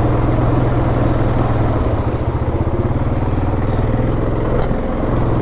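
2017 Yamaha Grizzly 700 ATV's single-cylinder four-stroke engine running steadily as the quad rides along a trail, with a brief dip in engine sound near the end.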